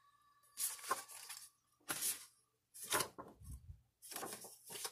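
Sheets of scrapbook paper and their plastic packaging rustling as they are handled and turned over, in four short bursts.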